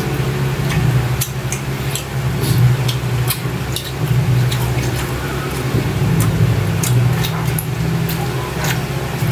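Mouth sounds of people eating by hand: scattered small wet clicks and lip-smacks from chewing. Under them runs a loud, steady low hum.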